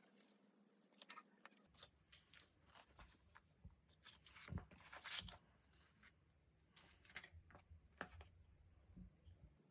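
Faint close-up paper and sticker handling: scattered crinkles, small taps and short tearing-like scrapes, busiest about four to five seconds in.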